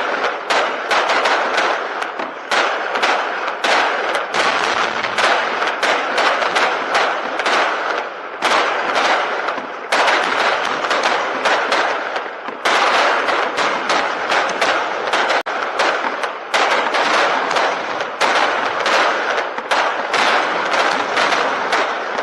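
Rapid barrage of firework shells bursting, several sharp bangs a second over continuous crackling, with two brief lulls midway.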